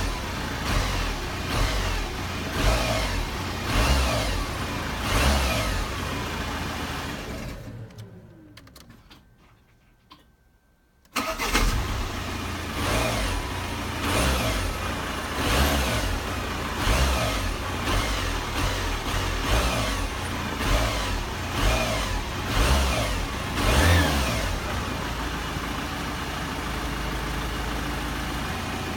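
Audi A4 B7 2.0 TDI four-cylinder diesel engine blipped sharply about once every second and a half, then switched off and winding down to silence. A few seconds later it restarts abruptly, is blipped repeatedly again, and settles into a steady idle. The owner is checking a knock in the engine area that he suspects comes from the flywheel.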